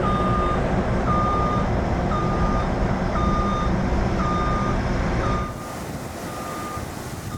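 Heavy equipment's backup alarm beeping about once a second, over a loud low engine rumble that drops away about five seconds in.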